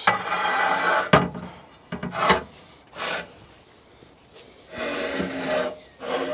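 Pizza stone being slid into a gas pizza oven: scraping and rubbing as the stone slides over the oven floor, with a couple of sharp knocks as it is set and located in place.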